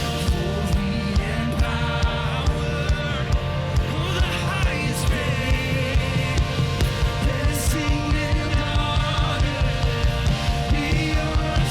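Full-band, rock-style worship music with a steady drum beat.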